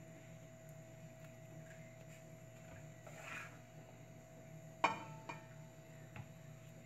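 Plastic spatula spreading chocolate sauce on a cake: a soft scrape about three seconds in, then a sharp clink against the glass plate with a brief ring about five seconds in and two lighter taps after it, over a steady electrical hum.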